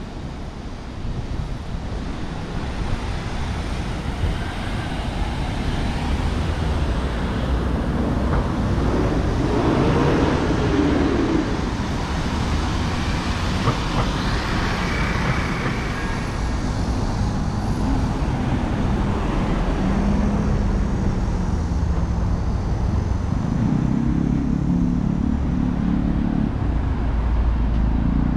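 City street traffic: a steady low rumble of road vehicles with cars passing, and an engine running close by near the end.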